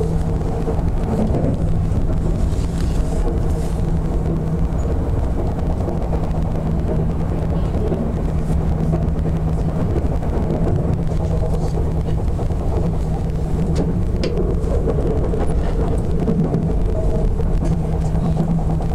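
Running sound inside an Odakyu 60000 series MSE Romancecar motor car, which has a Toshiba IGBT-VVVF drive and totally enclosed traction motors. The train runs at a steady speed: a constant rumble of wheels on rail under a steady hum, with a few faint clicks.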